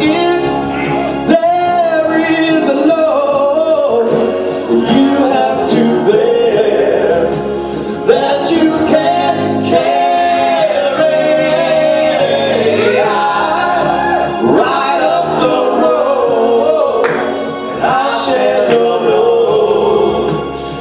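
Vocal ensemble singing a medley of 70s and 80s songs, with sustained sung notes running on without a break.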